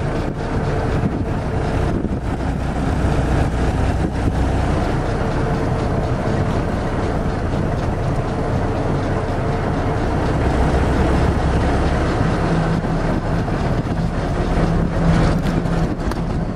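WWII jeep's four-cylinder engine running under way, heard from inside the open vehicle together with road noise; the engine note changes about twelve seconds in.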